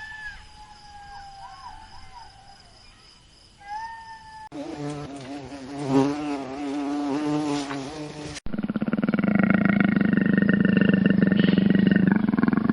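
A run of separate animal sound clips. First come faint whistling glides, and about four and a half seconds in a wavering pitched animal call. About eight seconds in comes a loud insect buzz made of rapid, even pulses, the loudest sound in the stretch.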